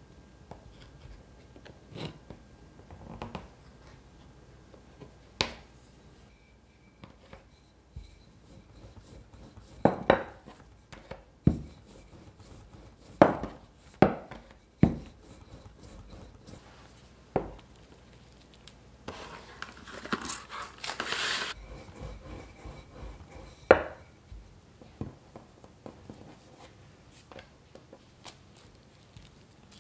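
Kitchen prep handling sounds: a knife and utensils tapping and knocking on a cutting board a dozen or so times, irregularly spaced, with a few seconds of crinkly rustling a little past the middle.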